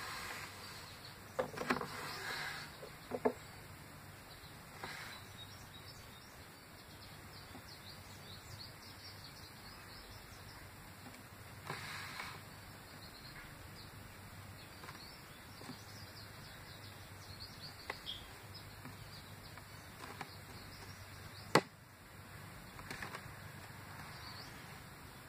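Quiet handling noises while nail polish is brushed on at a table: a few faint taps and knocks in the first few seconds, soft rustles now and then, and one sharp click about twenty-one seconds in, over a steady low room hum.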